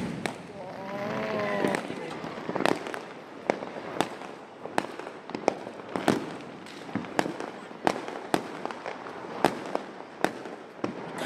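Diwali firecrackers and fireworks going off in quick, irregular succession: sharp bangs of varying loudness, some near and some distant, about two or three a second.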